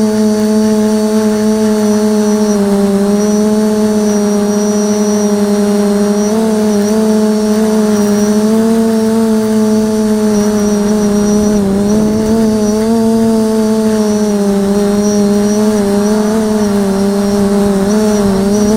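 A 550 mm quadcopter's electric motors and propellers humming steadily, heard through the camera mounted on the craft; the pitch wavers slightly up and down as the motors adjust speed.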